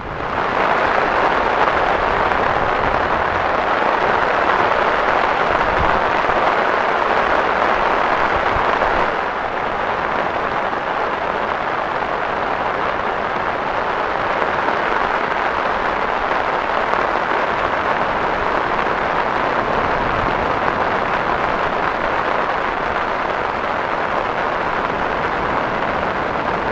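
Heavy rain falling steadily, an even hiss that drops a little in level about nine seconds in.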